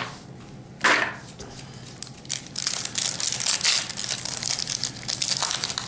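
Foil booster pack wrapper crinkling and being torn open, with one short sharp crackle about a second in and a dense run of crinkling from about two seconds in.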